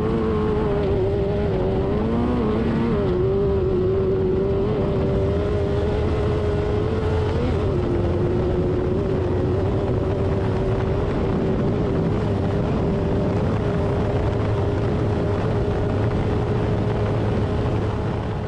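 Off-road race car engine running at steady high revs, with small dips and wavers in pitch about three and seven seconds in, over a heavy low rumble.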